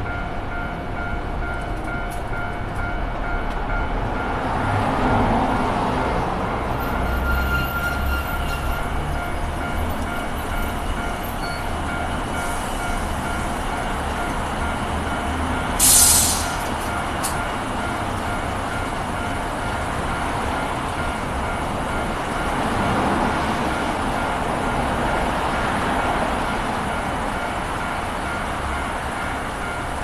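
Japanese level-crossing warning bell ringing with a steady repeating electronic ding while the crossing is closed. Trains pass twice, swelling a few seconds in and again past two-thirds of the way, and there is a brief sharp hiss about halfway through.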